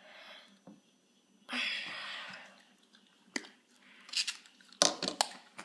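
Scissors cutting into the plastic insulation of an electrical cord: a crunching, scraping rustle about a second and a half in, then several sharp snips and clicks near the end.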